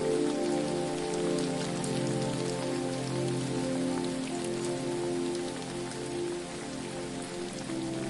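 Steady hiss of falling water with a fine, rain-like patter of drops, under soft sustained low tones like a music drone that shift pitch every second or so.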